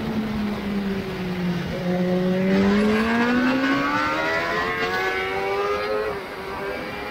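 Honda CBR1000RR-R Fireblade SP superbike's inline-four engine heard on board under way. The engine note dips slightly, then climbs steadily for about four seconds under acceleration, loudest about three seconds in, and drops about six seconds in. A steady rush of wind on the microphone runs beneath it.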